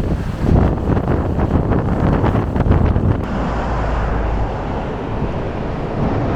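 Strong wind buffeting the microphone in heavy gusts, evening out into a steadier rush about three seconds in.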